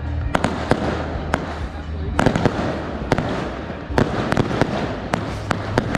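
A long string of firecrackers going off on the road: a continuous dense crackle of small pops with sharper, louder bangs scattered irregularly through it.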